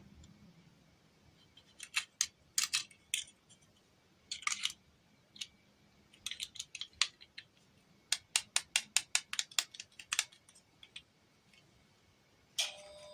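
Small sharp clicks and taps from handling small plastic toy pieces, in scattered groups with a quick run of about eight clicks a second about eight seconds in. Near the end a steady ringing tone with several pitches starts up.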